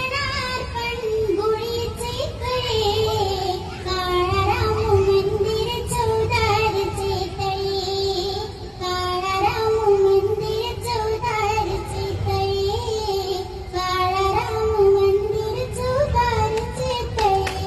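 A young girl singing a long, wordless melodic line with vibrato, over a low musical backing.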